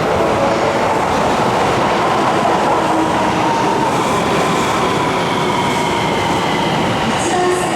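Osaka Metro 30000A series subway train pulling into the station: a steady, loud rumble of wheels on rail with a faint whine over it.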